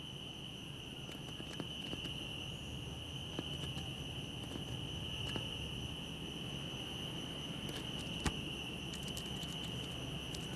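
A steady, high-pitched insect trill like crickets, with a few faint clicks scattered through it, one slightly louder about eight seconds in, over a low background rumble.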